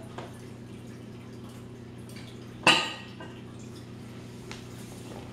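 A single sharp clink of a hard object, with a brief ring, about two and a half seconds in, over a steady low hum.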